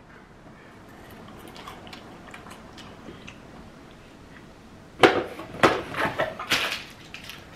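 A green tea Kit Kat wafer being chewed, with faint scattered crunches at first. About five seconds in comes a run of louder sharp crackles and rustles that lasts a couple of seconds.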